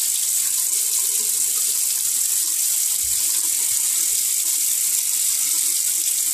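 Tap water running steadily into a bathroom sink, a constant hiss.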